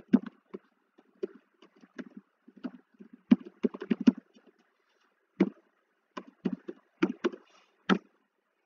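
Computer keyboard being typed on: an irregular run of short key taps in quick clusters with brief pauses between, the last tap near the end.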